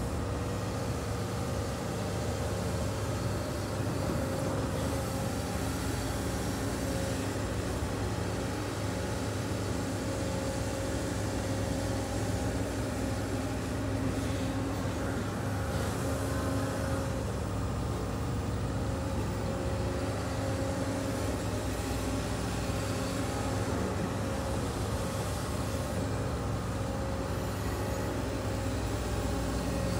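Case CX210D excavator's diesel engine running steadily under working load, with a constant hum as the boom and bucket move.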